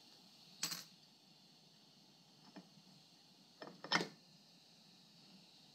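A few small metal clicks and clinks from parts being handled on a stripped-down Sachs moped engine's crankcase: a short clatter under a second in, a faint tick a little later, and a quick cluster of clinks about four seconds in, the loudest.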